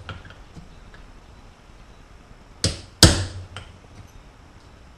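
Two hammer blows on a small steel punch about half a second apart, a little past the middle, the second louder, each with a short ring. They are bucking a small rivet flat between two hand-held punches, setting it to join the halves of a carrier bearing assembly.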